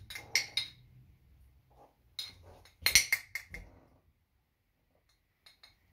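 Short clinks and knocks of seasoning bottles being handled and tipped over a frying pan, in a few quick clusters, loudest about three seconds in. Two faint clicks follow near the end.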